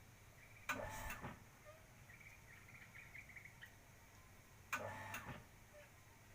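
Two short bursts of rapid tapping, about four seconds apart, with faint quick ticking between them: a spotted dove pecking at bread.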